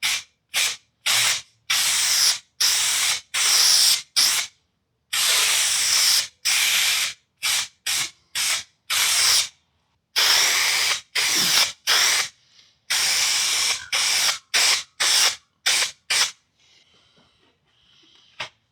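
Contact adhesive being sprayed in about twenty short hissing bursts of varying length, stopping a couple of seconds before the end.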